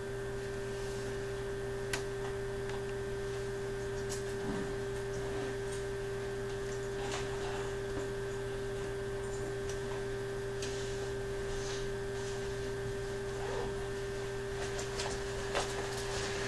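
Steady electrical hum inside a stopped electric train, its onboard equipment running while it waits at a stop signal, with a few faint clicks.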